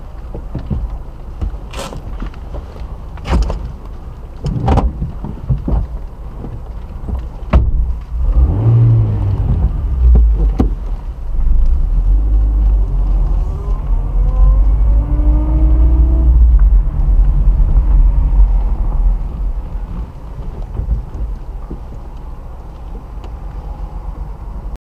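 Low rumble of a motor vehicle heard from inside a car, with sharp knocks about every second and a half in the first few seconds; the rumble is loudest from about nine to twenty seconds in.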